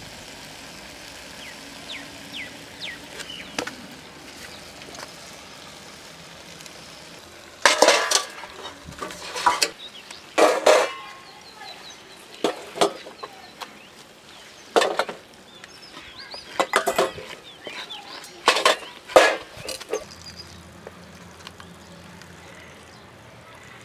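Wooden spatula scraping and stirring a thick roast in an earthenware pot: a run of loud scrapes, about one a second, starting about a third of the way in and stopping shortly before the end. Faint bird chirps in the first few seconds.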